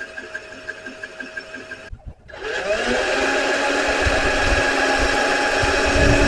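Electric drill spinning up and running steadily while drilling holes through the sheet-metal door panel, its whine rising over about half a second and then holding, with low thumps as the bit bites. Before that, about two seconds of a quieter, faint rapid ticking that cuts off abruptly.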